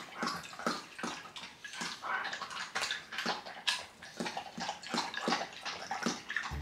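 Doberman lapping and slurping noodle soup from a glass bowl: irregular wet slurps and smacks several times a second, with the hissing 'shik-shik' breath sound he makes when the food is really tasty.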